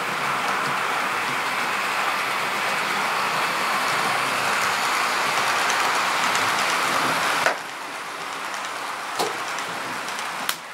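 TT-scale model express train rolling past over the track: a steady rushing of metal wheels on the rails that drops away abruptly about seven and a half seconds in, with a couple of sharp clicks near the end.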